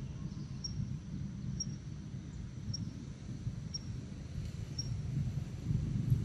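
Forest ambience: a short high chirp repeating about once a second, over a steady low rumble.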